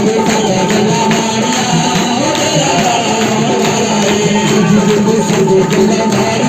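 Worship band music playing at a steady level, with high jingling percussion over the instruments.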